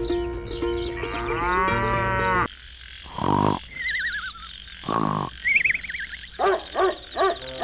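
Music that ends in a rising swoop, then two short mooing calls about a second and a half apart. Warbling whistle-like tones come between them, and a quick run of about five short calls follows near the end.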